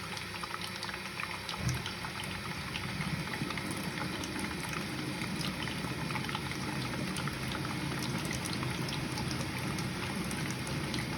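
Zanussi dishwasher taking in water for its second fill: a steady pour and trickle of water into the tub, with small splashes and drips, growing slightly louder.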